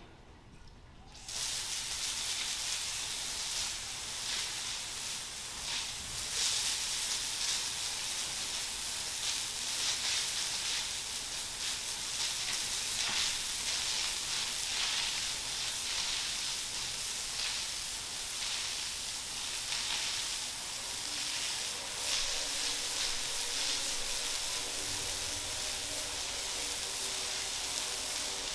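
Water spraying from a hose: a steady hiss that starts about a second in. A faint hum joins in over the last few seconds.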